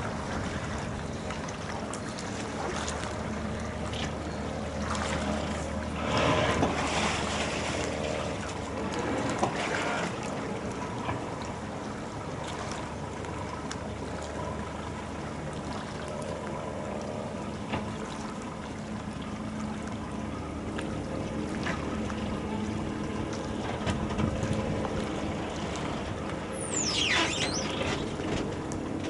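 Engine idling steadily under gusts of wind on the microphone, with a brief high falling whistle near the end.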